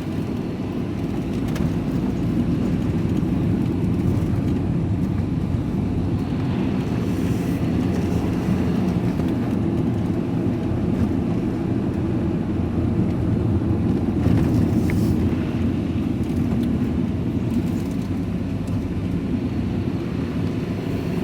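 Vehicle engine running steadily with tyre and road noise, heard from inside the cab while driving on a wet road.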